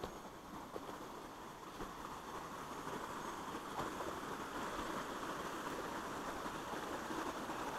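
A small rocky creek running over low cascades: a steady rush of water that grows louder as the trail draws near it, with a few faint knocks of footsteps in the first few seconds.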